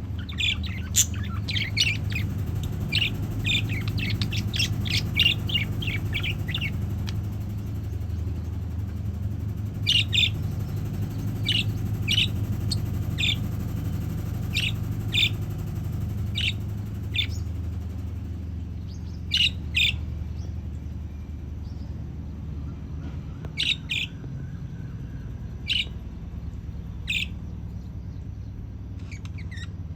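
Budgerigars chirping: a quick run of chirps over the first several seconds, then single chirps every second or two. A steady low hum runs underneath.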